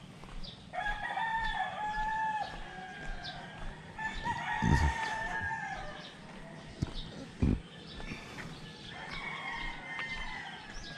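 Rooster crowing three times, long drawn-out calls that tail off at the end, with a couple of short low thumps between the second and third crows.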